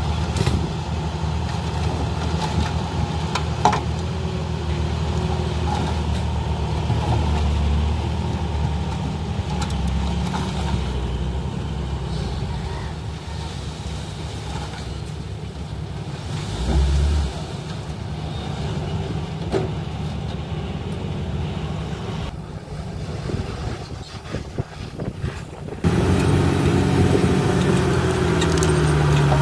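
Heavy diesel construction machinery engine running steadily, with a few sharp knocks; the sound jumps louder abruptly near the end.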